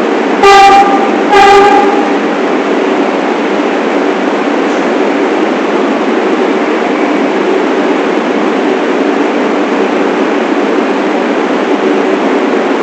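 New York City subway train running, with two short horn blasts close together near the start over the steady rumble and hum of the moving train.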